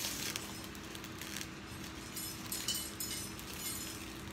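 Plastic backing film crinkling and rustling as Fruit Roll-Ups are peeled apart and unwrapped by hand, in short irregular rustles. A faint steady low hum runs underneath.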